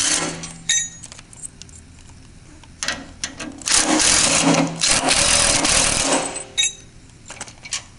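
Cordless power driver with a socket on an extension spinning out bolts from a steel frame: a short burst at the start, another around three seconds in, then a longer run of about two and a half seconds that stops about six seconds in, with a few metallic clicks in between.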